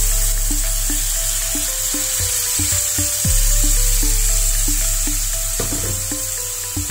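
Background music with an even run of short notes. Under it, hot water is poured into a pan of hot fried masala paste and sizzles.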